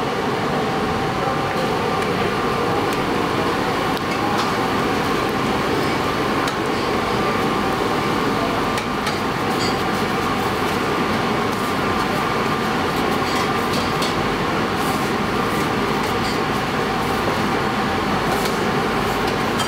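Steady drone of commercial kitchen extractor hoods running, with a constant hum. Faint light taps and clicks come through now and then, mostly in the second half, as dough is rolled out with a rolling pin on a stone counter.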